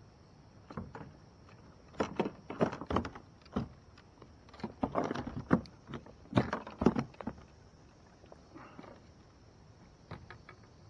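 Irregular knocks and clatter of gear being handled in a kayak, in two bunches about two seconds apart.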